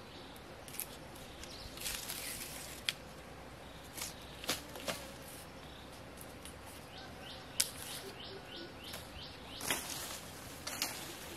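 Green bamboo being split and stripped by hand into thin strips: sharp cracks and snaps as the fibres tear, with rustling as the strips are pulled free.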